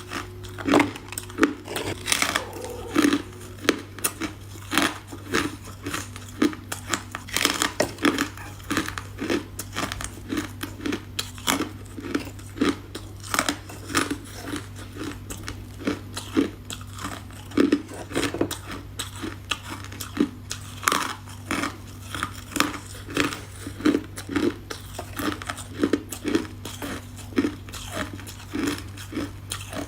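Ice being bitten and chewed, a steady run of sharp crunches about two a second, over a steady low hum.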